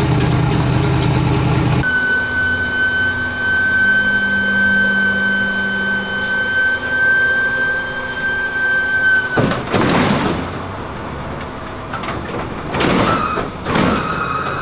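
An engine idling, which cuts off about two seconds in. A steady high whine follows and holds for several seconds. In the last five seconds the tall rear doors of an enclosed car-hauler trailer are swung shut, giving long sweeping, scraping sounds.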